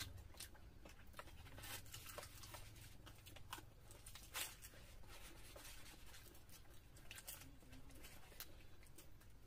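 Faint scattered clicks and crackles of eating by hand: puffed luchi torn apart and chewed, and fingers working curry on plates. One sharper click comes about four and a half seconds in.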